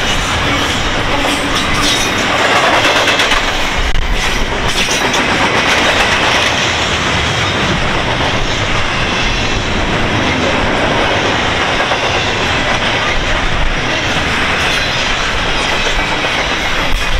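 CN intermodal freight train's well cars rolling past, with steady wheel-on-rail noise and repeated clicking as the wheels cross rail joints.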